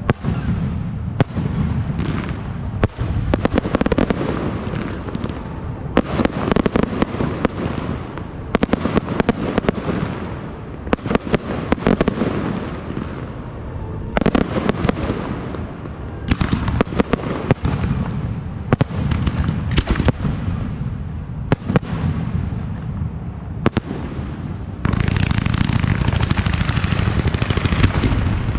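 Fireworks going off: repeated sharp bangs of bursting shells over a continuous crackle and rumble. About 25 seconds in, a dense, unbroken crackling takes over.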